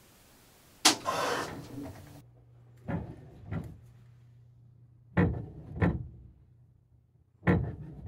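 Water hammer in the house's supply pipes, caused by the washing machine's solenoid fill valves slamming shut: a loud bang about a second in, with about a second of noise after it, then three pairs of sharp knocks, each pair two knocks about half a second apart.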